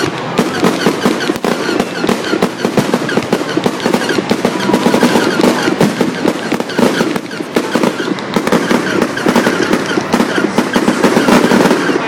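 Aerial fireworks going off in rapid succession: a dense, unbroken run of bangs and crackling from bursting shells.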